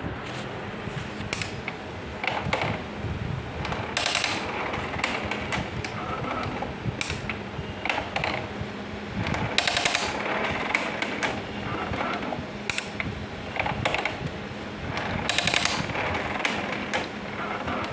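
HP LaserJet MFP M227 laser printer running with an irregular mechanical clatter of ratcheting clicks in repeated bursts over a steady low hum: the abnormal noise that is the printer's fault.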